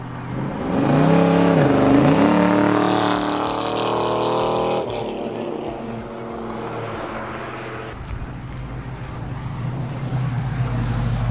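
LQ4 6.0-litre V8 accelerating at about half throttle. Its pitch climbs, dips briefly and climbs again, then cuts off suddenly about five seconds in. A low steady engine rumble follows and grows louder near the end.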